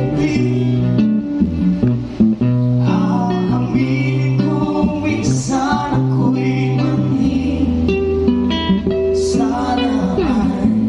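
Live acoustic band playing with singing: guitar and keyboard over sustained bass notes.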